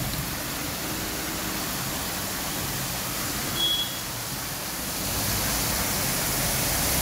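Steady hiss of heavy rain pouring down, with a short high tone about three and a half seconds in.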